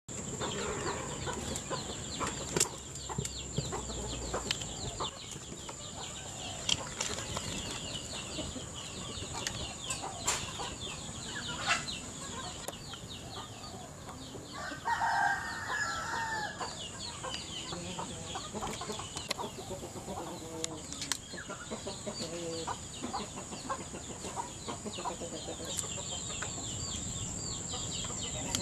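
Garden ambience: a steady high-pitched hum and rapid high chirping throughout, with scattered sharp clicks and knocks. A chicken calls for a second or two about halfway through.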